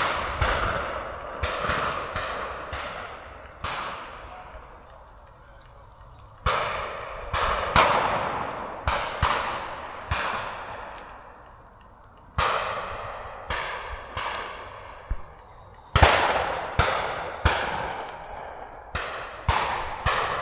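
Shotguns firing at flushed pheasants: many rapid shots in bursts, each with a long echoing tail, and short lulls between the bursts.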